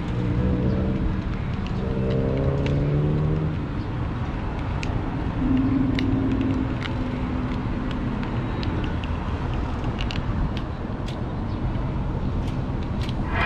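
Wind buffeting the microphone, a steady low rumble, with a few faint clicks from the sunglasses' lenses and frame being handled. A low drone is heard in the first few seconds and again briefly about six seconds in.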